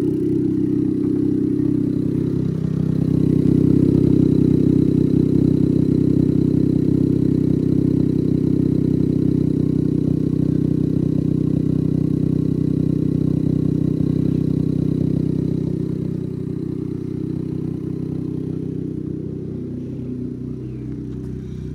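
2015 Smart Fortwo's 1.0-litre three-cylinder engine idling steadily; it grows somewhat fainter about sixteen seconds in.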